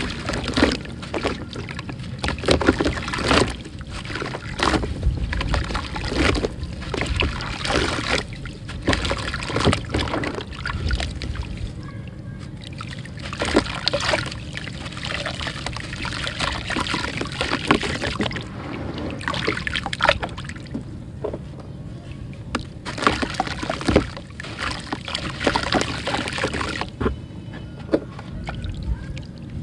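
A block of red dirt being dipped and crumbled by hand in a tub of water: wet sloshing and splashing, with irregular crumbling splats as handfuls break off into the muddy water.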